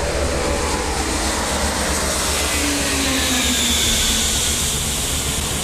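Antonov An-225 Mriya's six turbofan engines running at takeoff power as the jet climbs out overhead: a loud, steady rush of jet noise, with engine whines sliding down in pitch through the middle as it passes.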